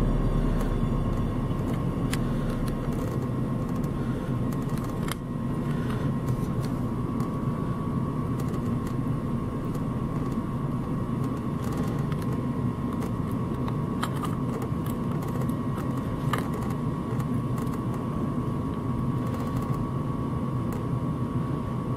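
Steady mechanical whirring drone with a faint steady tone above it, and a few light clicks of a metal exhaust tube being handled against the engine.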